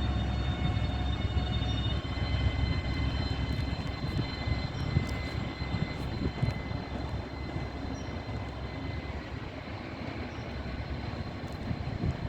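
Class 99 locomotive moving slowly, giving a steady low drone with a few steady high whining tones above it.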